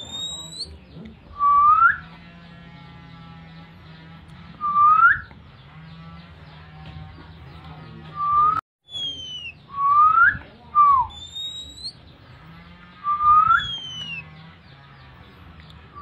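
A calling whistle for an Oriental magpie-robin (kacer) in breeding condition: short, clear whistles sliding upward, repeated every few seconds, with one sliding down about eleven seconds in. Fainter high glides fall between them, over a steady low hum.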